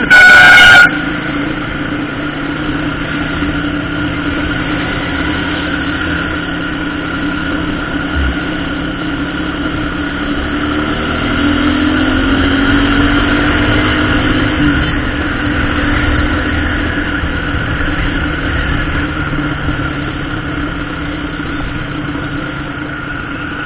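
Motorcycle engine running steadily while riding in traffic, its pitch rising for a few seconds around the middle as it accelerates. A short, loud horn beep sounds at the very start.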